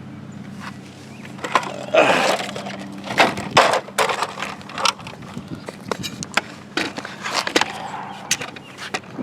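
Irregular sharp clicks and clattering knocks from a crashed Traxxas Rustler VXL RC truck, its front caster block broken in half, with a short scraping rush about two seconds in.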